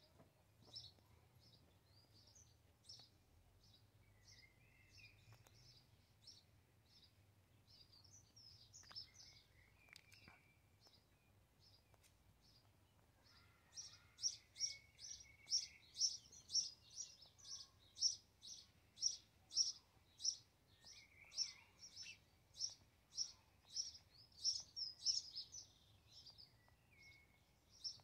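House sparrows chirping: scattered short chirps at first, then about halfway through a steady run of loud, repeated chirps at roughly two a second.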